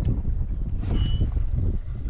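Wind buffeting the microphone on an open fishing boat, a steady low rumble with irregular knocks, and a short high beep about a second in.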